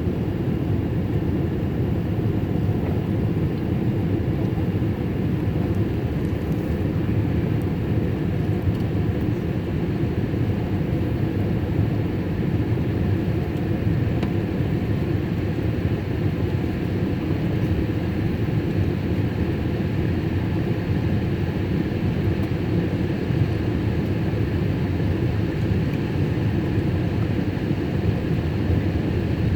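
Boeing 787 airliner's jet engine and airflow noise, a steady low rush that holds level without rising or falling.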